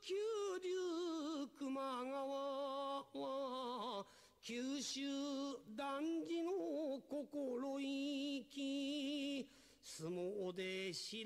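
Unaccompanied solo voice singing sumo jinku: drawn-out held notes with wavering, melismatic ornaments, broken by short pauses for breath between phrases.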